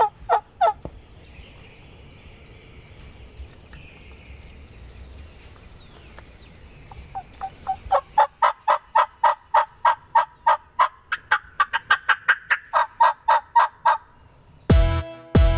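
Turkey calling: a few sharp calls at the start, then from about seven seconds a long run of rapid, evenly spaced notes, about five a second, rising a little in pitch and falling back. Music with a beat comes in near the end.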